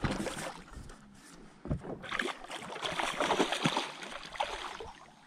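Hooked barramundi splashing and thrashing at the surface beside the boat, the splashing loudest from about two seconds in. A couple of knocks near the start as the landing net is picked up off the deck.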